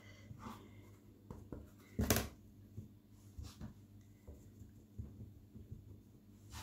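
Hands folding soft, sticky stollen dough over on a silicone baking mat and pressing it down, with a plastic dough scraper: faint scattered pats and rubs, and one louder thump about two seconds in.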